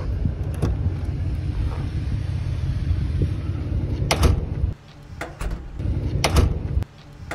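Steel walk-through door on a shipping container being shut, with weather stripping clipped into the door jamb: two sharp knocks as it closes and latches, about four and six seconds in. A low rumble of wind on the microphone runs underneath.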